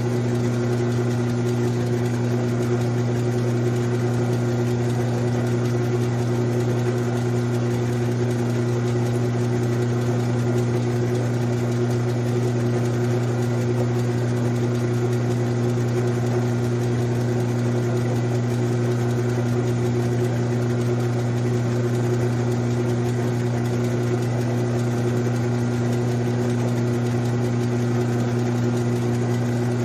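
Grizzly G9972Z lathe running steadily with its chuck spinning: a constant motor and gear hum that holds one pitch throughout.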